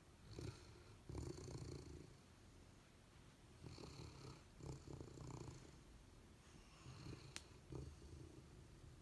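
A sleeping retriever dog snoring softly: about six uneven snoring breaths, low and breathy. There is a single faint sharp click about seven seconds in.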